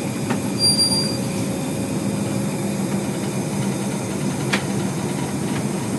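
Class M4 diesel locomotive running steadily under power, its engine drone mixed with the noise of wheels on rails, heard from inside the cab. A brief high squeal comes about half a second in, and there are a couple of sharp clicks.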